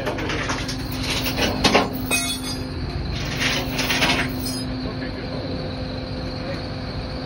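Machinery humming steadily, with clattering and metallic scraping in the first four seconds or so. A higher steady whine continues after that.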